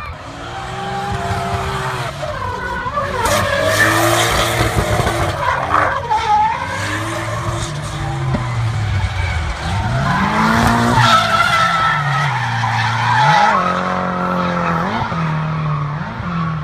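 Drift cars sliding around a circuit: engines revved hard, their pitch swooping up and down again and again as the throttle is worked, over the continuous screech and hiss of tyres spinning and skidding.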